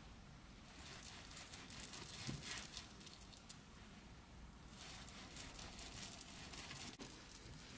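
Chef's knife sawing through a spongy carrot egg roll onto a wooden cutting board: faint soft crackly rasping, in two runs of strokes with a short pause between.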